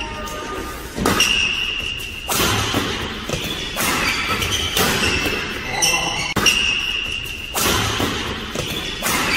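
Badminton rackets striking a shuttlecock in a fast doubles rally: about seven sharp hits roughly a second apart, each ringing briefly in a large hall.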